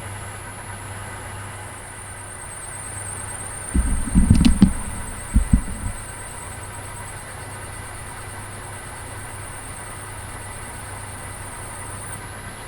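Metal lathe running with a steady hum while a drill bit cuts into brass, a faint high whine running through most of it. A few loud dull knocks come about four to six seconds in.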